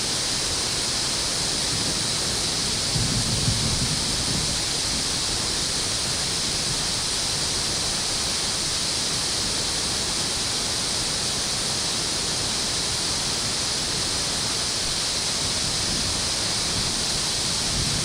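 Steady rush of water pouring through a dam outlet, with a brief low bump about three seconds in.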